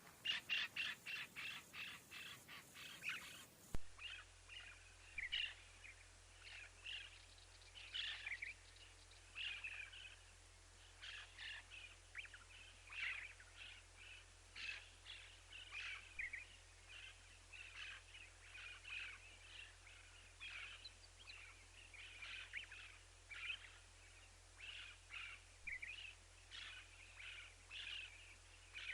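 A parrot chirping in short, repeated calls: a quick run of about three calls a second at the start, then scattered chirps every half second to a second.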